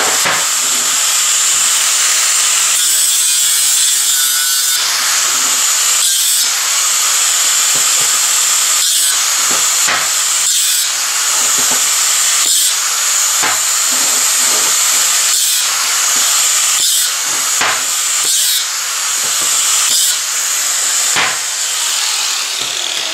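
Angle grinder with a 36-grit 3M Cubitron fibre disc running and grinding the surface of a steel bar clean. Its steady high whine runs throughout while the disc bites into the metal in repeated strokes.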